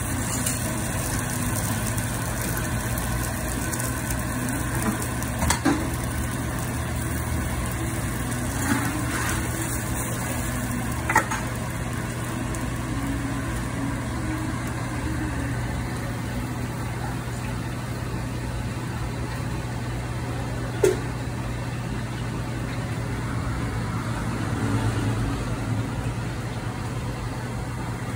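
Steady low hum of commercial kitchen equipment under a soft hiss of food frying on a flat-top griddle. A few sharp clicks of metal tongs and spatula on the griddle plate break through, the loudest about 11 and 21 seconds in.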